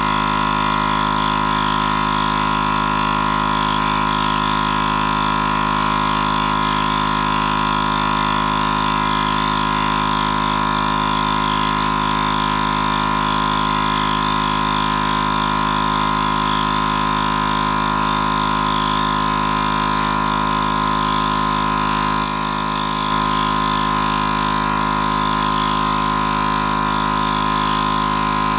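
Air compressor running steadily under load as it pumps the launcher's air tank up toward 140–150 psi, with a brief dip in level about 22 seconds in.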